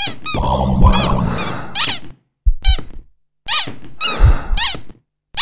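Cartoon sound effects: a string of short, high squeaks that rise and fall in pitch, over a few dull thuds and a low rumble.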